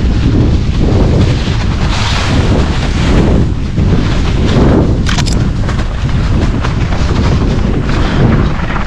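Heavy wind buffeting on the microphone: a loud, steady rumble that swells and eases in gusts.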